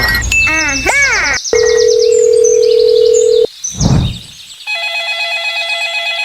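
Telephone sound effects: a few quick sliding chirps, then a steady dial tone held for about two seconds, then, after a short sweep, a steady ringing tone starting near the end.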